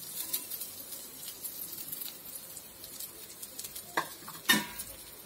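Uthappam batter and oil sizzling quietly on a hot dosa griddle, with two short sharp sounds about half a second apart near the end.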